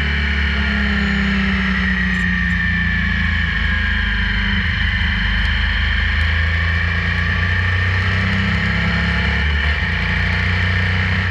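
Motorcycle engine running steadily while cruising, picked up by a camera mounted on the bike.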